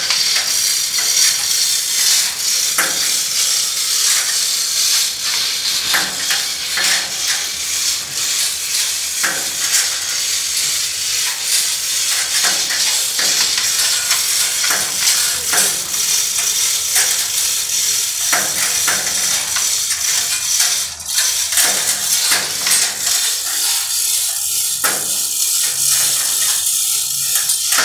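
Steel construction work on a long-span lattice truss of deformed rebar: frequent sharp metallic knocks and clinks over a steady hiss.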